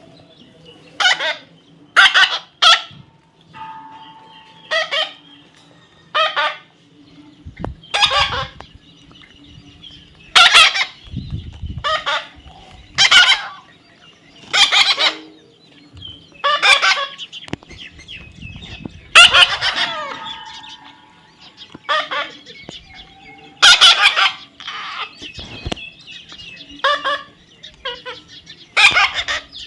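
Young parrot squawking over and over, giving harsh, screechy calls about every one to two seconds.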